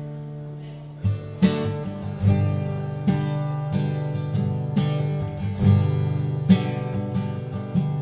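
Solo acoustic guitar. A chord rings and fades for about a second, then strumming resumes in an instrumental passage of strummed chords with sharp strokes.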